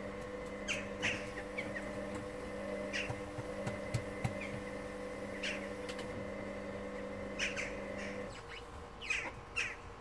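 Hoover Dynamic Next washing machine's drum motor humming steadily while the drum tumbles the wash, cutting off about eight seconds in as the drum pauses. Short high falling chirps and a few sharp clicks come and go throughout.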